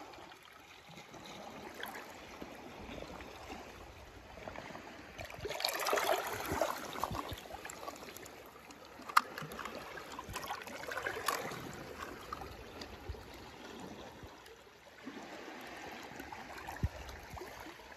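Water sloshing and trickling, swelling about six seconds in and again around eleven seconds. Two sharp clicks, one just after nine seconds and one near the end.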